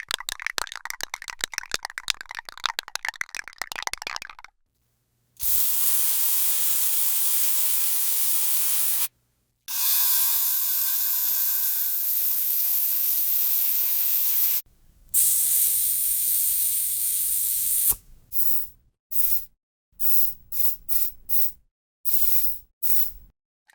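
Aerosol spray-paint can: a rapid rattling shake, then three long, steady sprays of several seconds each, then a quick series of short spray bursts.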